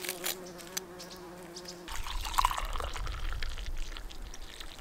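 A fly buzzing close by in a steady hum. About two seconds in, this gives way to water pouring from a stainless steel kettle into a mug, with a low rumble under it.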